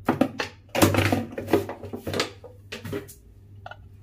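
Irregular clicks, knocks and scrapes of a spoon and fingers working in a plastic mixing bowl as salt is mixed into boiled beans by hand, busiest about a second in.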